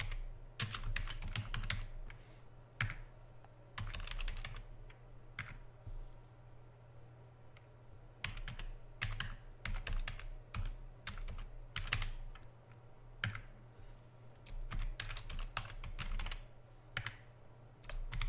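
Typing on a computer keyboard: bursts of quick keystrokes with short pauses between them.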